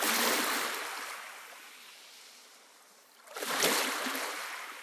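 Surf washing in twice: a rush of breaking water that slowly dies away, then a second wave about three and a half seconds in.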